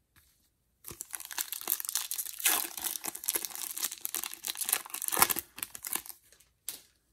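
Topps Opening Day baseball card pack wrapper being torn open and crinkled by hand, starting about a second in, with a couple of louder tears and stopping about six seconds in, then one brief crinkle.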